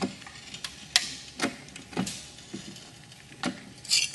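Hand-operated shop press being worked to bring its ram and a socket down onto an aluminium spar fitting to bend it: a series of sharp clicks and knocks from the handle strokes, one about every half second to second, with a couple of short creaks.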